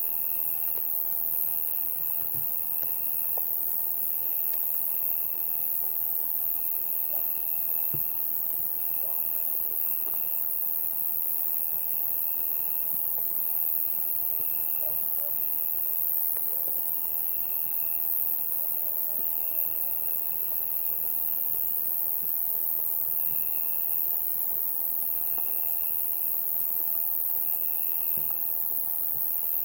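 Summer-night insect chorus: a dense, steady, high-pitched drone of many insects, with a cricket trilling in phrases of about a second separated by short breaks.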